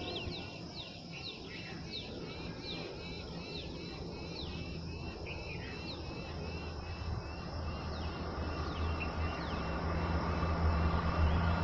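Birds chirping with many quick, high, downward-sliding calls, over a low rumble that builds steadily louder from about halfway through: a train approaching along the line.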